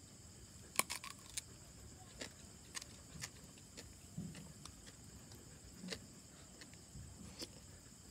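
Scattered faint clicks of a metal spoon against a bowl and quiet chewing, over a steady high chirring of insects.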